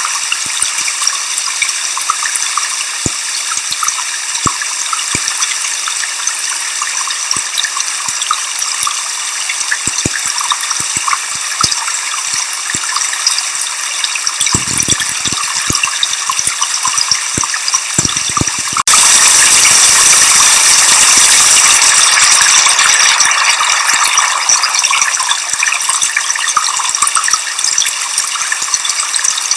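Waterfall mixed with white noise: a steady rushing hiss of falling water, high and bright, with scattered small clicks. About two-thirds of the way through it suddenly jumps louder and brighter, then eases back over several seconds.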